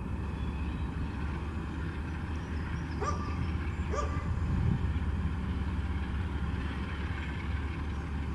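A dog barks twice, about a second apart, over a steady low rumble.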